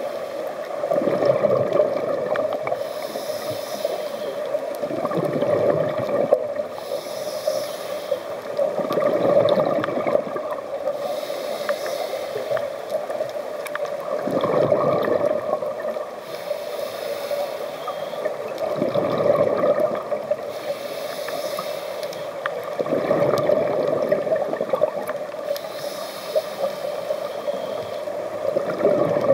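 Scuba diver breathing through a regulator underwater: bubbling exhalations about every four to five seconds, alternating with hissing inhalations.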